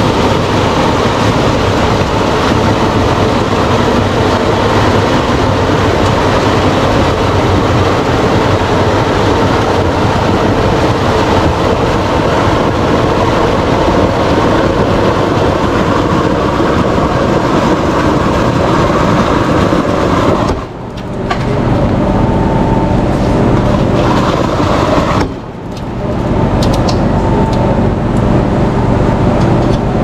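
Steady loud mechanical rumble and noise, like a running vehicle or machinery, broken by two brief drops about twenty and twenty-five seconds in.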